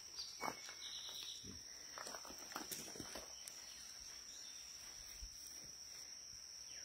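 Faint footsteps on gravel, a few irregular crunching steps mostly in the first three seconds. Behind them runs a steady high-pitched insect trill.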